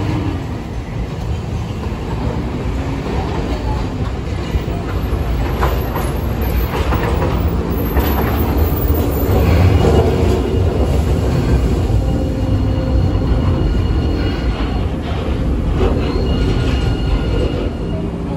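Hiroden streetcars running on street track: a steady rumble of steel wheels on rail that swells as a tram passes close about halfway through, with clacks over rail joints and a faint high wheel squeal in the second half.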